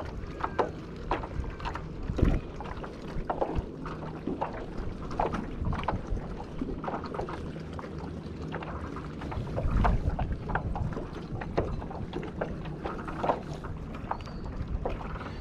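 Small waves slapping against a kayak hull in the wind, with irregular knocks and clicks throughout.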